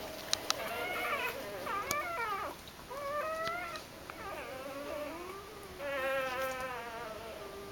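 Newborn Doberman puppies squeaking and whimpering: many thin, high cries overlapping and wavering in pitch, with short pauses between them. Two sharp clicks sound about half a second in.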